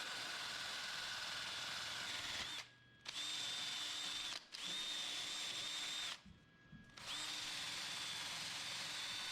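Wire wheel on a power tool spinning against a fresh weld to brush it clean: a steady high whine over a scratchy hiss. It stops and restarts three times, the second stop very short.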